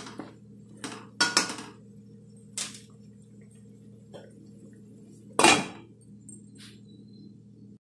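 A spatula scrapes and knocks against a non-stick kadhai as mutton pieces are stirred, making several short clatters. About five and a half seconds in, a glass lid clanks down onto the pan, the loudest sound. A steady low hum runs underneath and cuts off near the end.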